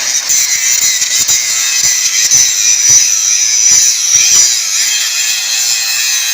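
DeWalt DCG414 cordless 125 mm angle grinder grinding down a steel weld seam: a loud, steady high whine from the disc, with grating and irregular knocks as it bites. It holds its speed under heavy pressure, which the testers read as the tool being impossible to bog down.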